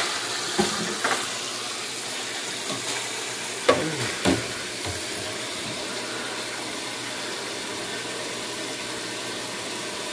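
Hot water running steadily from a tap into a stainless steel sink, a constant splashing hiss. Two sharp knocks come about four seconds in, with lighter clicks just before.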